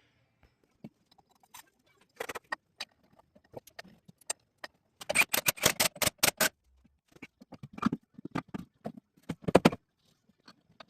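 Metal parts and hand tools clinking and rattling in scattered sharp clicks, with a quick run of clicks about five seconds in and another around eight to ten seconds.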